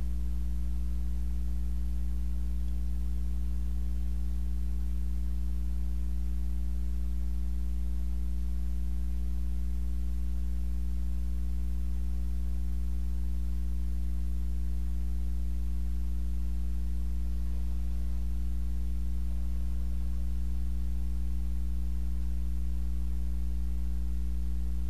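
Steady low electrical hum with a stack of overtones, unchanging throughout.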